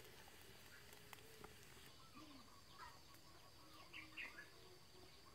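Near silence with faint bird chirps, a handful of short calls clustered about three to four seconds in.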